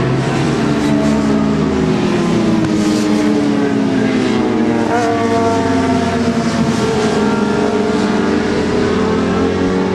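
Several racing motorcycle engines overlapping as the bikes go through a corner, their pitch falling as they brake and shift down, then rising again as they accelerate out.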